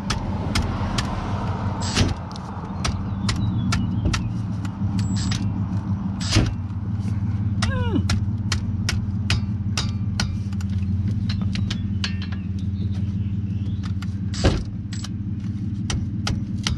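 Cordless 3/8-inch electric ratchet running on a brake caliper bolt with a steady whirring rattle, trying to break the bolt loose, the caliper slide pin turning with it. Three sharp knocks, about two seconds in, near the middle and near the end, come from the ratchet being hit by hand.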